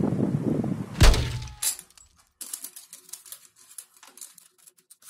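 Wind buffeting the microphone, cut off by one loud thump with a short ringing tail about a second in. Then wooden popsicle sticks give many light, irregular clicks and taps as they are laid out side by side on a table.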